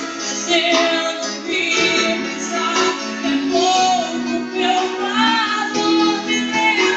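A woman singing a gospel song live, backed by a band.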